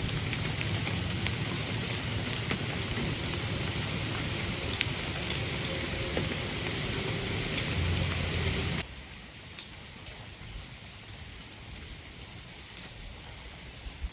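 Steady hiss of falling rain with scattered sharp drop ticks, cutting off abruptly about nine seconds in to a much quieter faint hiss.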